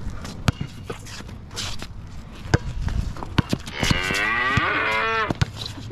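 A basketball bouncing on the court, with scattered sharp knocks. About four seconds in comes a loud, drawn-out call that falls in pitch over about a second and a half.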